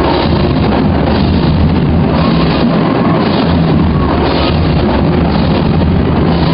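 High school marching band playing loudly: sustained low brass tones over a steady beat of drums.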